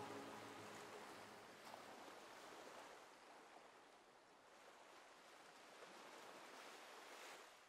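Near silence: the last of the guitar music fades out in the first moment, leaving only a faint even hiss.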